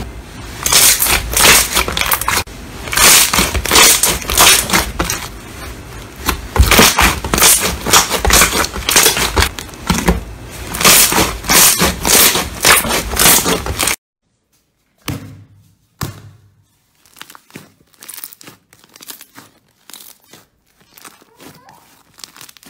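Hands squeezing and pressing clear pink slime, with dense popping and crackling of trapped air. About 14 s in it cuts off abruptly, and fainter, sparser crackles and clicks follow as a thick yellow slime is kneaded.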